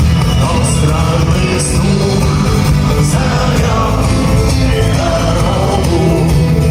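Rock song with a singing voice over a steady, heavy bass line.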